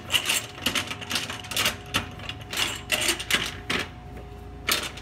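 Black star knobs being spun down by hand onto the threaded studs around the steel lid of a Smokaroma pressure smoker: a rapid, irregular run of clicks and rattles, with a brief pause near the end.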